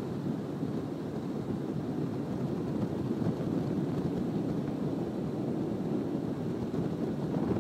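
Flex boat (rigid inflatable) running at speed: a steady rush of engine and wind noise that holds even throughout.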